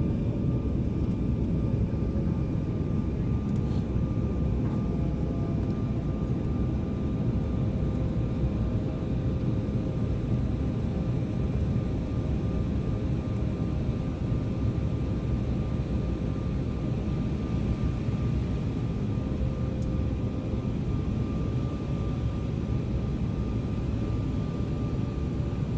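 Airliner cabin noise in flight, heard from inside at a window seat: a steady, deep rush of engine and airflow noise, with a faint steady hum of a couple of higher tones over it.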